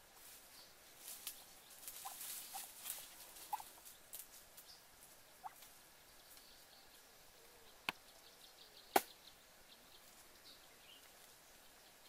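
Footsteps crunching and rustling through dry leaf litter and twigs, with scattered small crackles, then two sharp snaps about a second apart in the second half.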